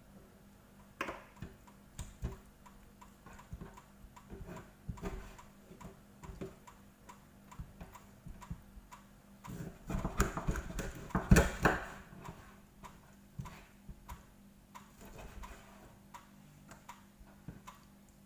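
Knife cutting raw chicken wings on a cutting board: irregular clicks and knocks, busiest and loudest about ten to twelve seconds in.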